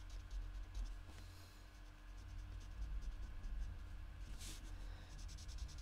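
Fine-point tip of a Stampin' Blends alcohol marker scratching faintly across card stock in short colouring strokes, over a low steady hum. A brief, louder hiss about four and a half seconds in.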